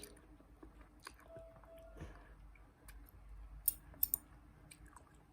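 A child chewing a mouthful of bibim-myeon noodles close to the microphone: soft wet mouth clicks, with a couple of sharper smacks about three and a half to four seconds in.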